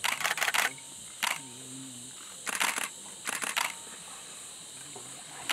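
Camera shutters firing in rapid bursts, several quick clicks at a time: a dense burst at the start, a single click about a second later, then two more bursts around the middle. A steady high hum runs underneath.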